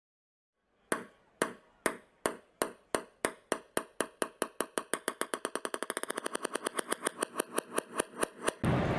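Intro sound effect of sharp ringing ticks, about two a second at first. They speed up to about eight a second in the middle, then slow again and stop. Steady background noise starts just after they stop.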